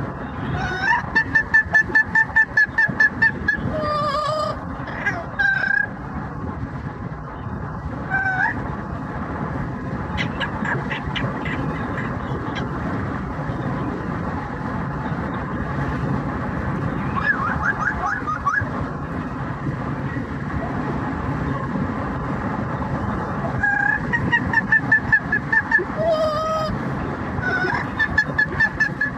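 Yellow-naped Amazon parrot singing in an opera-like style: rapid runs of short, repeated high notes near the start and again near the end, with whistles and gliding squawks in between. Under it runs a steady low rumble of road noise.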